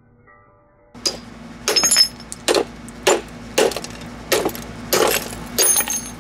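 Hamilton Beach blender switched on about a second in, its motor running with a steady hum while hard contents bang and crack against the jar, a sharp knock every half second or so.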